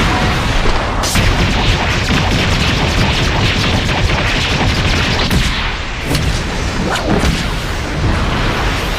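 Layered fight sound effects: a dense, continuous blast of booms and explosions, with sharp impacts about a second in and several more between five and seven and a half seconds in.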